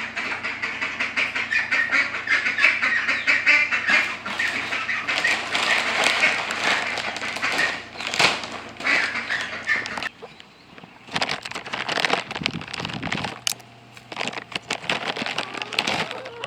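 A flock of domestic ducks quacking and chattering, thinning out about ten seconds in.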